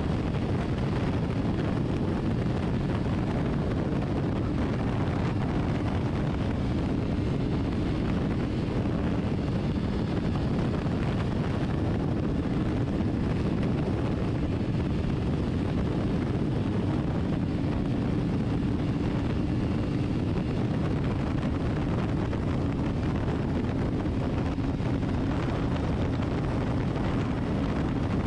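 Heavy wind rush on the microphone over the steady drone of a BMW S1000RR's inline-four engine, holding constant revs while cruising at about 210–220 km/h.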